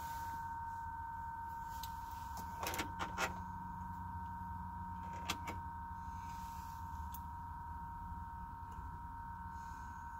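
A steady, high whine of several tones coming from behind a pickup truck's dashboard air vent while the key is off. The owner blames the noise for draining the battery. A few clicks come about two and a half to three and a half seconds in, and again near five seconds.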